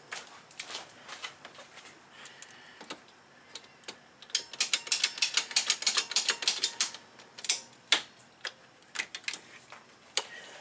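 Hand ratchet wrench clicking: a quick run of rapid clicks lasting about two and a half seconds near the middle, with scattered single clicks and tool knocks on metal before and after.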